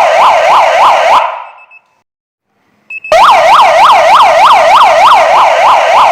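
Kingvox SPMX electronic siren sounding a fast up-and-down yelp tone, about three to four sweeps a second. It is switched off about a second in and fades out. After a short silence and a faint click it is switched back on and yelps again.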